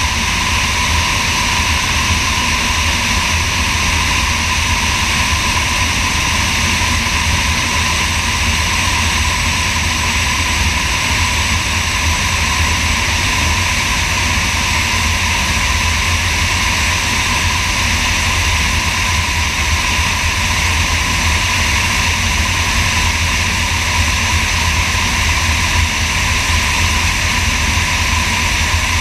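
Sonex light aircraft in flight: its engine and propeller running steadily, mixed with wind rushing over a camera mounted beneath the wing.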